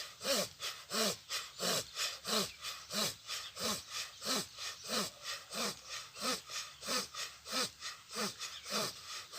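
Bhastrika pranayama (bellows breathing): rapid, forceful breaths pumped in and out at an even pace of about three strokes a second, each a short sharp rush of air.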